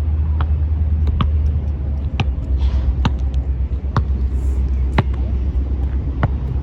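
Wind buffeting the microphone with a heavy low rumble, over a basketball being dribbled on outdoor pavement: sharp, ringing bounces about once a second.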